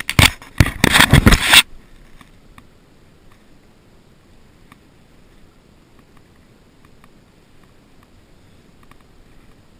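Loud scraping and rubbing on the camera microphone as a hand handles the head-mounted camera, lasting about a second and a half before cutting off. After that only a faint steady hiss of the flowing river remains.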